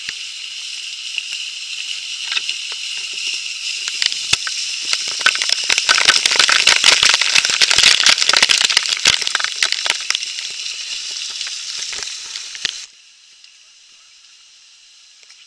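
Small waterfall rushing, with close spray and water droplets crackling and popping on the microphone, the spatter densest in the middle. It stops suddenly well before the end, leaving a faint hiss.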